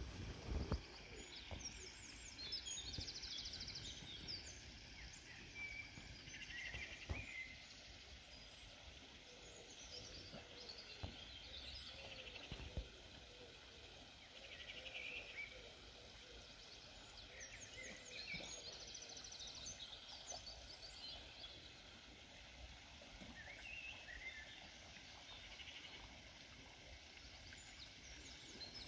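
Faint outdoor ambience with high chirps and short trills from birds recurring every few seconds.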